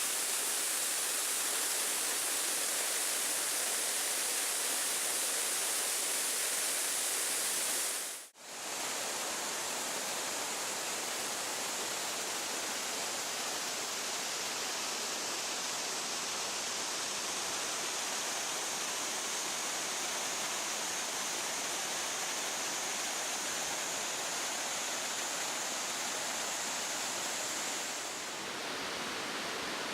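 Waterfall roaring steadily: an even rush of falling water that drops out for a moment about eight seconds in.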